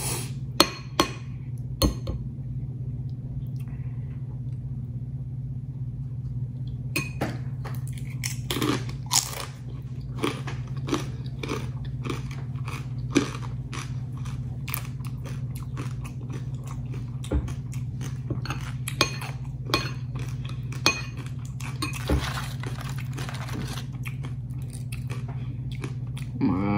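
Crisp fried tortilla chips being bitten and chewed close to the microphone. A few sharp bites come in the first two seconds, then it goes quieter, and from about seven seconds in there is a fast run of crunching, all over a steady low hum.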